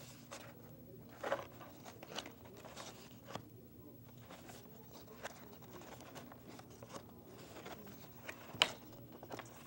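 Pages of a printed booklet being turned and handled close to a clip-on microphone: faint paper rustling with a few short, sharper crinkles, the loudest about eight and a half seconds in.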